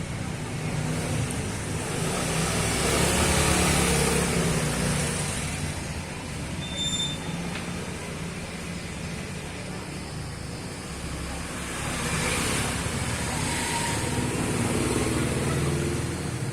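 Road traffic: a steady low rumble of motor vehicles that swells twice as they pass, the second time from about twelve seconds in.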